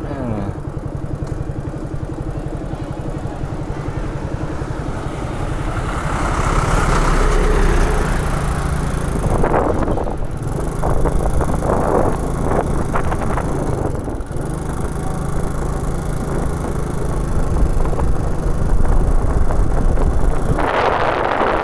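Motorcycle engine running steadily while riding along, with wind rushing over the microphone at times.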